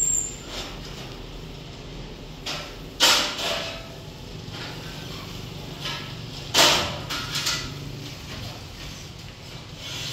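Paint roller on an extension pole rolling paint across a plastered ceiling, making swishing strokes, the two loudest about three seconds in and at six and a half seconds, with fainter ones between. A steady low hum runs underneath.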